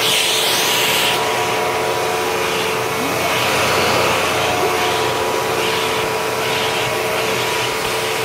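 Hoover WindTunnel twin-chamber upright vacuum cleaner running, drawing air through its hose: a steady motor hum and whine over a rush of air, with a louder airy surge in the first second.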